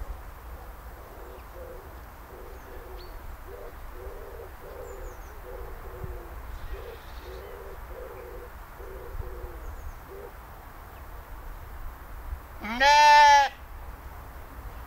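A sheep bleats once, loud and about a second long, near the end. Before it, low hooting bird calls repeat in short phrases for several seconds over faint outdoor background.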